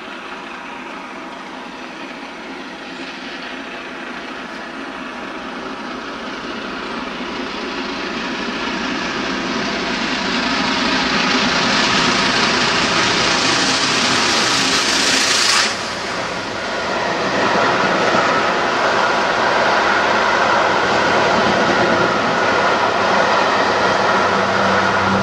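Peppercorn A1 three-cylinder steam locomotive 60163 Tornado approaching at speed and getting steadily louder, passing close about 16 s in with a sudden drop in its hiss. Its train of coaches then runs past with a steady rolling noise.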